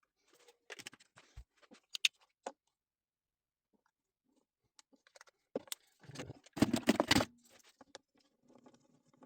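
Hands handling small objects at a workbench: scattered clicks and light knocks, then a louder stretch of clattering and rubbing about six to seven seconds in. No lathe is running.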